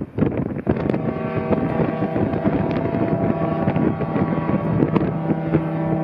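A BC Ferries ferry's horn sounding a long, steady blast that starts about a second in, with wind buffeting the microphone.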